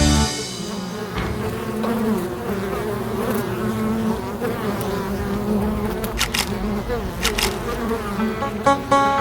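Insect buzzing, like a bee or fly, wavering slightly in pitch, with a few short clicks.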